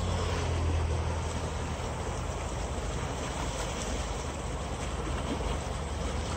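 Steady rush of water pouring out of a concrete culvert into a ditch, with a constant low rumble underneath.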